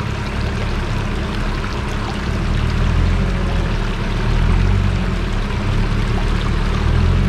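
A 4x4's engine running low in the river while rushing river water splashes around it, the engine rumble growing louder about halfway through.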